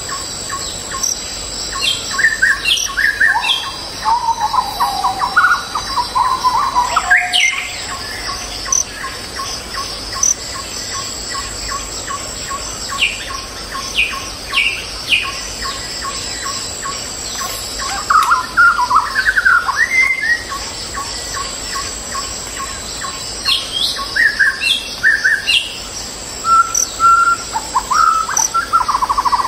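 Wild birds singing: groups of quick chirps and short sliding whistled notes come and go every few seconds, over a steady high insect drone.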